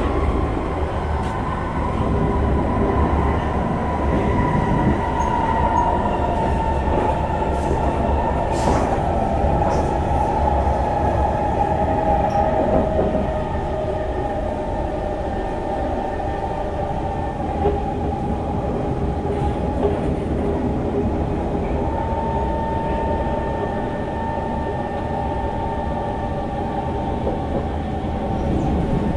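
Inside a moving SMRT C151 metro train: steady running noise of the wheels on the track and the car body, with a high whine over it that drifts slowly lower in pitch.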